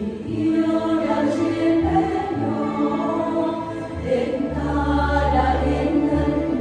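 Mixed choir of men and women singing a slow Vietnamese Catholic hymn in held notes through handheld microphones, over electronic keyboard accompaniment with steady bass notes.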